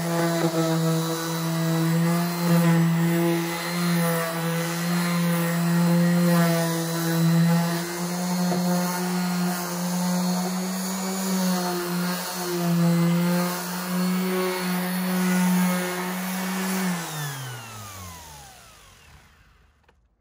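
Electric random orbital sander running steadily while sanding a wooden panel with 120-grit paper, then switched off about 17 seconds in, its motor winding down in pitch to a stop.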